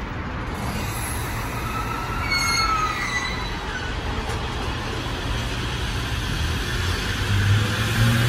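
JR Musashino Line electric commuter train pulling out of the station: a low running rumble, with the traction-motor whine starting to rise as it picks up speed near the end.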